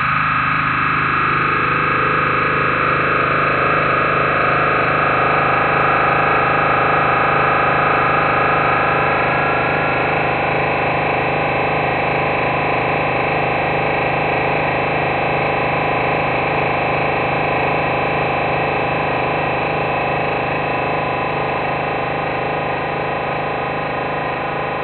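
Dense electronic drone from a MaxMSP patch that turns a live video of the painting into sound: many held tones stacked together. The middle tones swell in over the first couple of seconds, and a bright upper band fades out about ten seconds in.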